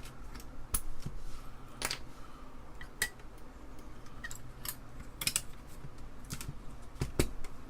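Irregular sharp plastic clicks and clacks, about one a second, as parts of an Apple II Plus keyboard (keycaps and space-bar pieces) are handled and worked loose. The sharpest click comes near the end.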